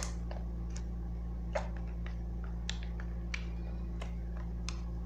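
Slime being mixed and worked by hand, giving scattered small, sharp clicks at uneven intervals over a steady low hum.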